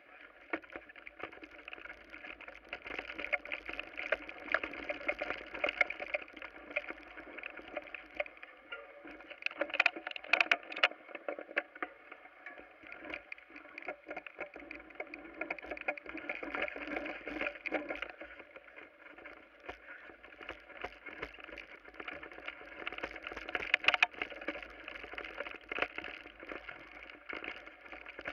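Bicycle rattling and jolting as it rolls downhill over rough grass and dirt, with a steady rush of tyre noise. Sharp knocks come about ten seconds in and again later on.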